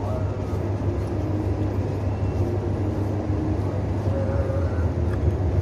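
Steady low rumble of outdoor background noise, like traffic or machinery, with no distinct event standing out.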